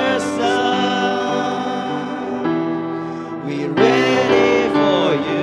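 Worship song music: sustained band chords with a singer holding long notes that slide and bend, swelling louder just under four seconds in.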